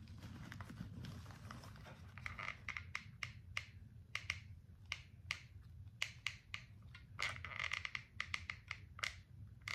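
Hands working with paper craft pieces: irregular light clicks and taps with short bursts of paper rustling, over a low steady hum.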